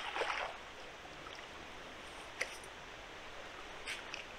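Steady rush of flowing river water, with a few brief sharp sounds, the loudest about two and a half seconds in and another near four seconds.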